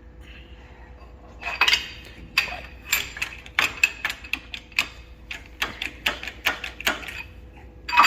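Steel parts and tools being handled in a workshop: a dozen or so irregular, sharp metal-on-metal clinks and knocks with a short ring, starting about a second and a half in. A faint steady hum sits underneath.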